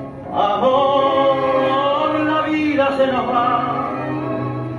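Tango orchestra with a singer: a long sung note with vibrato held over the orchestra, sliding down about halfway through into another held note.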